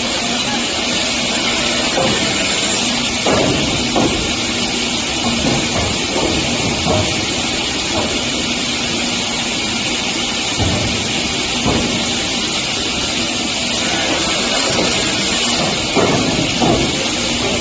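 Industrial multi-head wood cut-off saw machine running, with a steady high hiss and a faint motor hum. Irregular knocks come every second or so as boards move through the machine.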